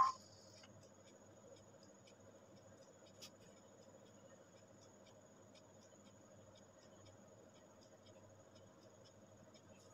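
Faint scratching of a marker pen's tip drawn along a ruler on paper, over a steady low hum.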